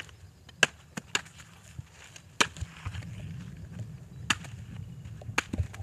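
Large curved chopping knives hacking open palmyra palm fruits: about eight sharp, irregular chops, some close together.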